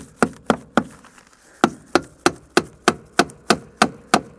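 Hammer driving a nail through aluminum fascia, a run of sharp even strikes about three a second, with a short pause about a second in before the strikes resume.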